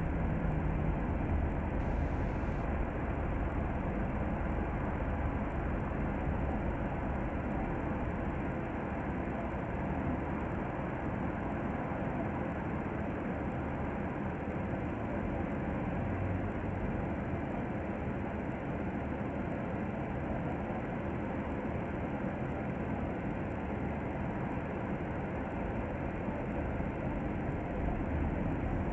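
Double-decker bus in motion, heard from inside on the upper deck: steady engine and road noise.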